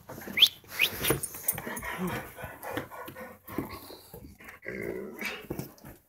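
A dog vocalising close to the microphone: two short, high rising whines in the first second, then a long run of lower, rough, irregular growling sounds.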